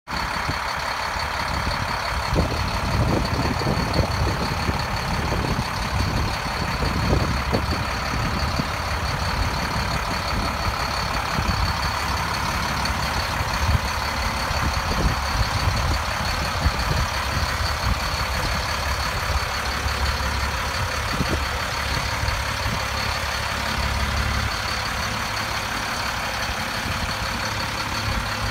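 Diesel engine of a Sterling Acterra dump truck idling steadily, with irregular low rumbling gusts of wind buffeting the microphone.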